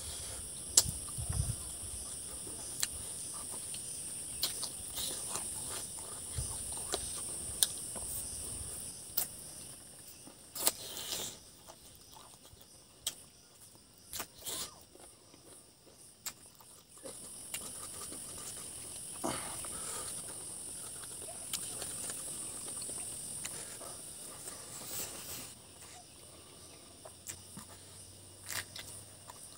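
Insects calling in a steady high-pitched drone that drops away about ten seconds in and comes back a few seconds later. Over it come scattered sharp wet clicks of chewing and lip-smacking from a man eating rice and chicken by hand close to the microphone; these clicks are the loudest sounds.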